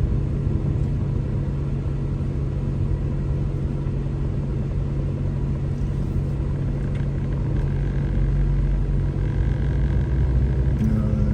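Car engine and road noise heard from inside the cabin while driving slowly: a steady low hum that grows a little louder about eight seconds in.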